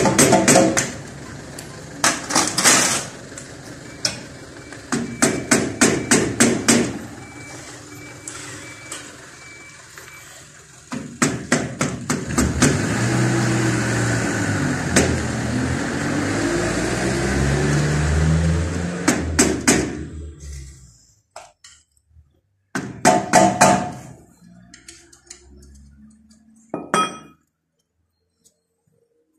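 Metal tools working on engine bolts: bursts of rapid metallic knocking, about five strikes a second. Then comes roughly nine seconds of a tool running with a pitch that wavers up and down, and a few clanks near the end.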